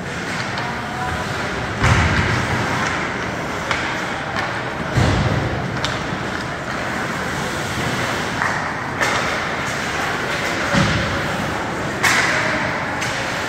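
Ice hockey play: irregular thuds of the puck and players hitting the rink boards, about five in all, over a steady hum of rink and crowd noise.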